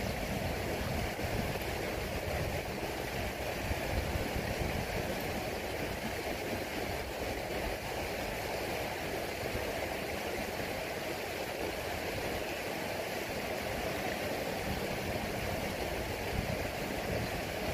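Kubota M6040SU tractor's diesel engine idling steadily while the tractor sits stuck in mud.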